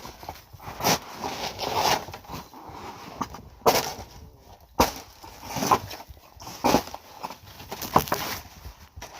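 A tool scraping and chopping at hard-packed snow, giving a string of irregular scrapes and knocks about once a second.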